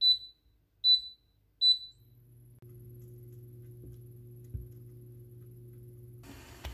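Electric cooktop's touch control panel beeping three times as a finger presses it, followed by the hob's steady low hum with a faint high whine as it runs. Near the end a spatula stirs the milk in the pan, with a brief knock.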